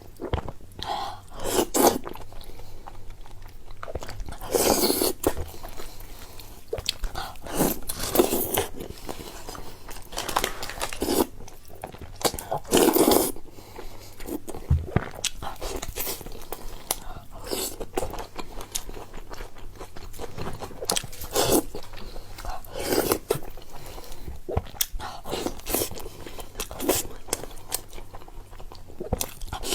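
A person biting and chewing crunchy food, with irregular crisp crunches and louder bites every second or two.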